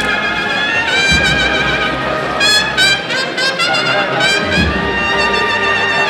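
A Spanish cornet-and-drum band (banda de cornetas y tambores) playing a processional march: cornets hold sustained, wavering notes over a steady drum accompaniment.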